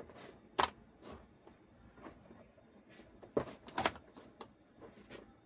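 Sharp clicks and knocks of a graphics card being picked up and handled on a workbench: one loud click about half a second in, then two knocks close together past the middle, with fainter taps between.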